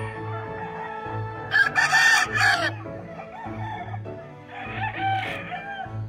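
A gamefowl rooster crows loudly once, starting about a second and a half in and lasting just over a second. Background music with a steady beat plays throughout.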